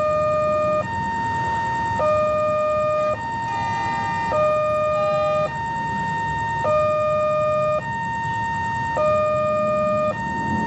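Railway level-crossing electronic warning siren sounding a steady two-tone hi-lo call: a lower and a higher tone alternate, each held a little over a second, repeating evenly with no break.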